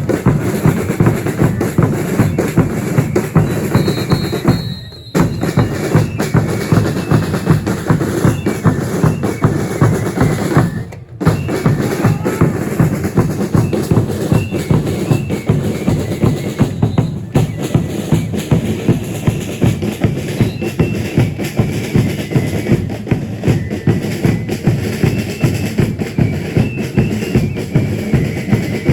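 Bass and snare drums of a Chilean baile indio religious dance troupe beating a steady, driving rhythm. The sound cuts out briefly twice.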